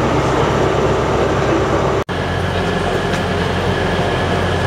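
A steady low hum from trains standing at a station platform, over general station bustle. It breaks off abruptly about two seconds in and resumes as a different, deeper steady hum.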